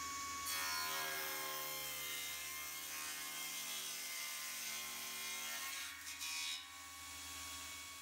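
Sliding table saw ripping a thick 50 mm board. The cut begins about half a second in and eases off around six and a half seconds, and the motor's note sags as the blade takes the load.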